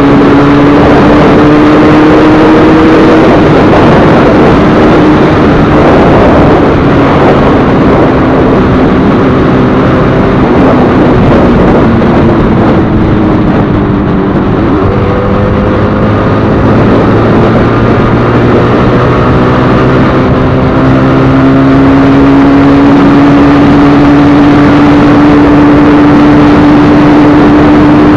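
Freshly rebuilt Yamaha RD350's two-stroke parallel-twin engine, fitted with an aftermarket CDI ignition, running under way; its note climbs with the throttle and shifts with gear changes, about 3 s in and again about 15 s in, then climbs steadily again in the last third, over a loud rush of wind on the microphone.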